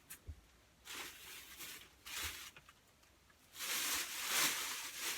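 Rustling of bags being handled, in three bursts, the longest and loudest near the end.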